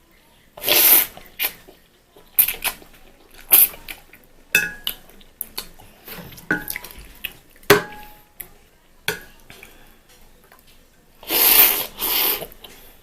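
Close-up eating sounds of instant fried noodles: slurping and wet chewing, with a utensil clicking against the plate now and then. Two longer slurps come about a second in and near the end.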